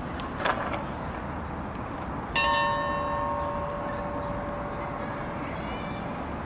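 A bell strikes once about two and a half seconds in and rings on, its several tones slowly fading over a few seconds. A short sharp sound comes about half a second in, and faint high chirps near the end, over steady background noise.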